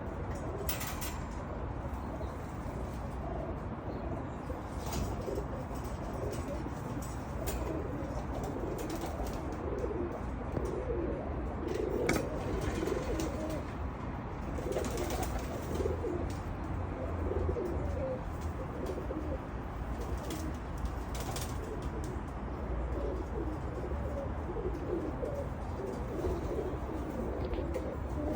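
Domestic pigeons, Pakistani Teddy pigeons, cooing over and over in low, throaty rolls, with a few brief sharp clicks or wing flutters here and there.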